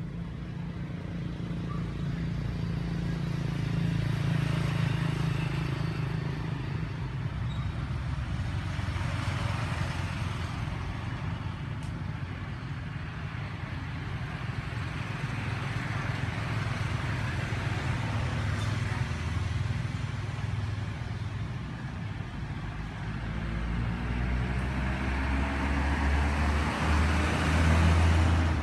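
Low engine rumble of motor traffic passing nearby, swelling and fading, with an engine rising in pitch and growing louder near the end.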